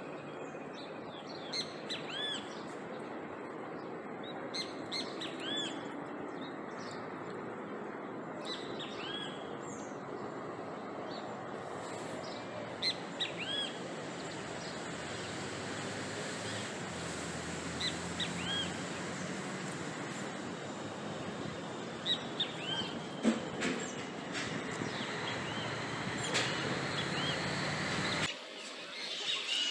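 Open-air ambience: a steady background hum with scattered short bird chirps throughout, and the background changes abruptly near the end.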